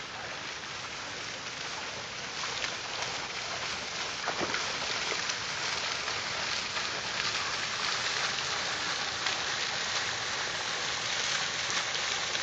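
Fountain jets splashing into a shallow pool: a steady, rain-like hiss that grows a little louder over the first few seconds.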